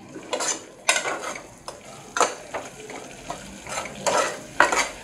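A metal ladle stirring a thick, wet masala in an aluminium pressure cooker, with irregular scrapes and knocks against the pot. The mixture sizzles softly underneath.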